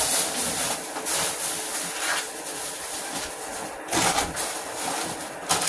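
Plastic bag rustling as it is handled, in several short surges, over a steady mechanical hum.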